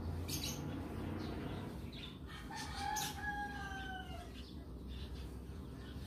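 A rooster crows once, a single call of nearly two seconds that holds its pitch and dips slightly at the end. It sounds over a low steady background rumble, with a couple of short clicks.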